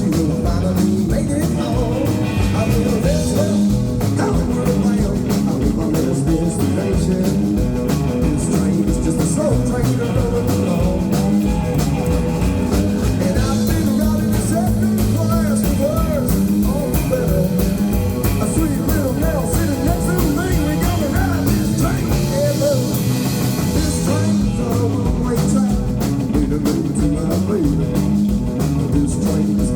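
Live band playing a rock and roll song with a steady, driving beat.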